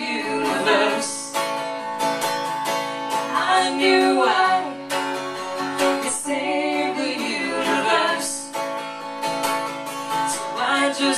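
Acoustic guitar strummed in a steady rhythm, with a woman singing short phrases over it in a live acoustic song.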